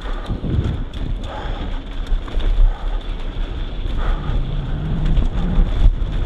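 Wind rushing over the microphone of a mountain bike's ride camera on a fast downhill descent, with tyres rolling over a dirt trail. Scattered sharp clicks and knocks come from the bike rattling over bumps.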